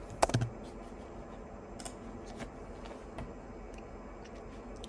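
A few light, scattered clicks of computer keys over a steady low hiss of room noise.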